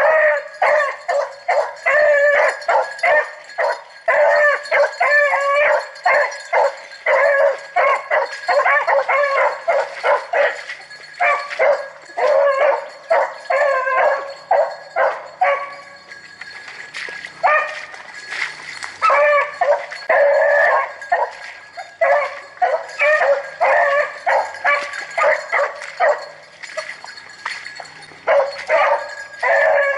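Rabbit hounds baying on the trail of a swamp rabbit: a fast, almost unbroken run of barking calls, with a short lull a little past halfway.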